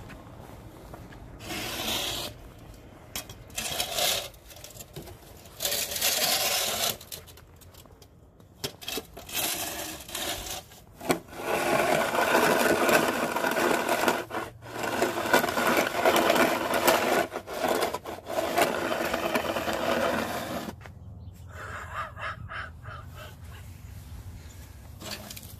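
Orange plastic snow shovel scraping along pavement as it pushes snow, in a series of strokes each a second to a few seconds long, with the longest, loudest run in the middle. Near the end the scraping is quieter.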